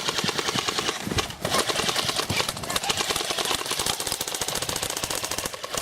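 Airsoft guns firing rapid full-auto bursts, several overlapping in a fast continuous rattle, with a brief lull about a second in.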